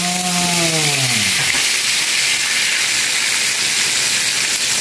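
Whole fish deep-frying in a wok of hot oil, the oil sizzling loudly and steadily.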